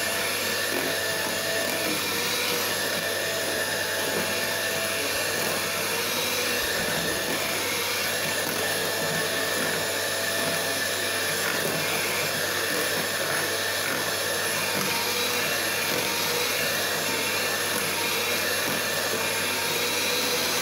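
Electric hand mixer running steadily, its beaters whirring through cake batter as eggs are beaten into creamed butter and sugar.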